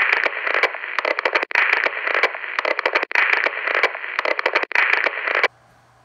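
Crackling, hissing static that flickers in level, drops out for an instant now and then, and cuts off abruptly about five and a half seconds in.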